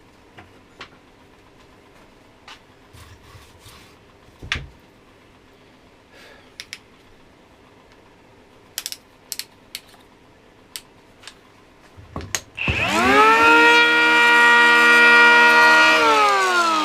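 Scattered light clicks and knocks from the tool being handled. Then, about 13 seconds in, the brushless motor of a Parkside PHA 12 12-volt cordless planer spins up quickly to a steady high whine, runs for about three seconds, and winds down near the end.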